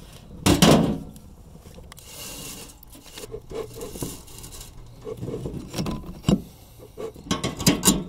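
Beekeeper's bellows smoker being handled and worked to get it burning: a loud burst of noise about half a second in, then scattered knocks and light metallic rattles, the sharpest clicks coming near the end.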